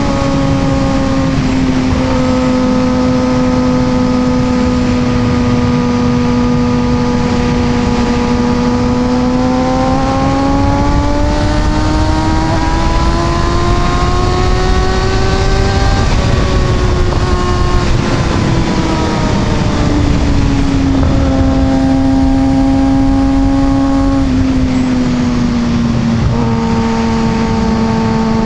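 Inline-four sport motorcycle engine under way: it holds a steady note, then climbs in pitch for several seconds as it accelerates, breaks off about halfway through and drops back down in steps with a few short breaks, over heavy wind rush.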